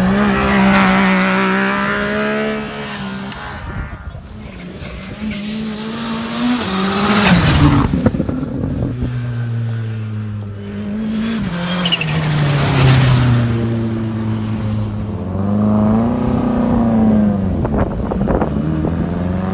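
Rally car engine revving hard and dropping back again and again as it shifts gears and passes at speed, loudest about seven seconds in and again about twelve to thirteen seconds in.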